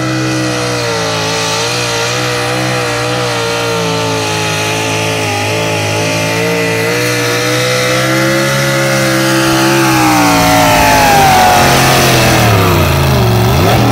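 Modified engine of a vintage pickup pulling truck running hard at high, slightly wavering revs under load during a truck-pull hook. About ten seconds in it comes off the throttle and the pitch falls, then drops sharply and is revved back up near the end.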